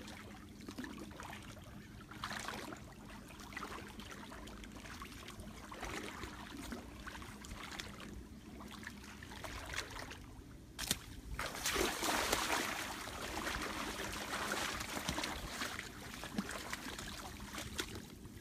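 Rustling of wet grass and leaves with small splashes, as someone wades through a flooded, overgrown field; a sharp click shortly before the middle, then a louder spell of rustling and splashing for several seconds.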